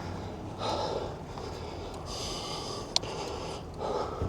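A cyclist breathing into the microphone while riding, a breath every second or so, with a single sharp click about three seconds in.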